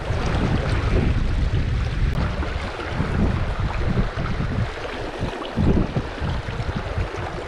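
Wind buffeting the microphone in uneven gusts, over the steady rush of river water.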